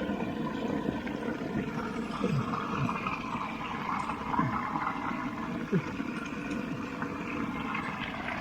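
Running water flowing and gurgling steadily.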